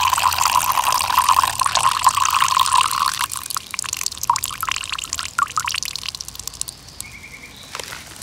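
Foley urination: a steady water jet from a refillable 3-litre juice dispenser bottle splashing onto a leather jacket and grass. The stream runs for about three seconds, then breaks into dribbles and drips that thin out.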